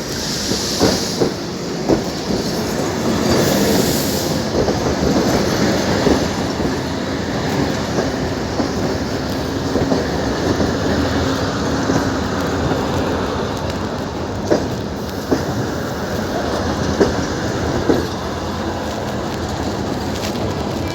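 Abu Qir line passenger train running on the rails: a steady rumble with irregular sharp clacks of the wheels over rail joints, and brief high wheel squeals near the start and about four seconds in.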